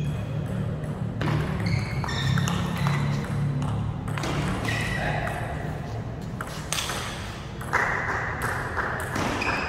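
Table tennis rally: the ball clicks sharply off the rackets and the table in an uneven back-and-forth, each hit with a short ringing ping, until the point ends.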